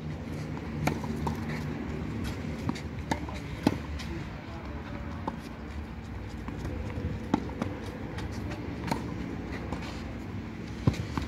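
Tennis rally on a clay court: sharp pops of rackets striking the ball and the ball bouncing, at irregular intervals of about one to two seconds, over a low steady hum.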